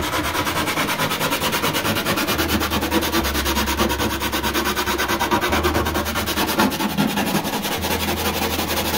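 A power tool grinding or sanding: a steady rasping with a fast, even pulse of about ten beats a second.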